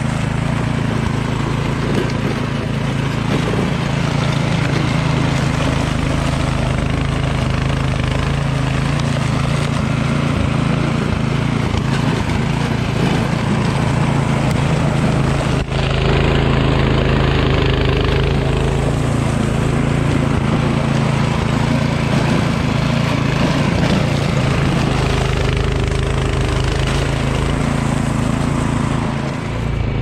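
Troy-Bilt Storm 2410 two-stage snowblower's 208cc Powermore single-cylinder engine running steadily under load, its auger and impeller chewing through snow and throwing it out of the chute.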